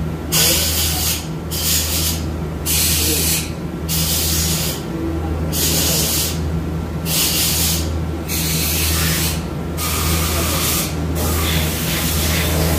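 Compressed-air blow gun fired in repeated hissing bursts of about a second each, with short gaps between them, over a steady low hum.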